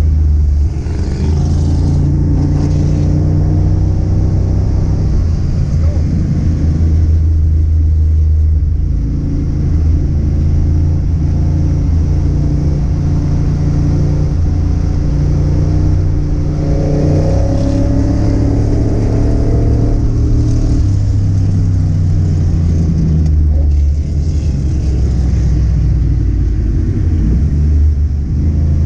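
Car engine running loud and low under load on a cruise, its pitch rising and falling with the throttle, with a stretch of climbing revs partway through.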